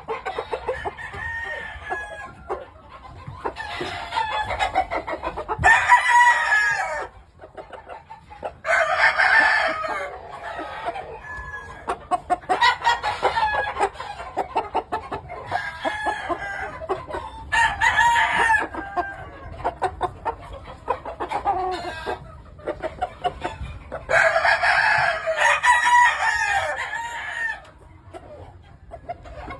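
Gamefowl roosters crowing in turn, about five long crows, among steady clucking from many chickens.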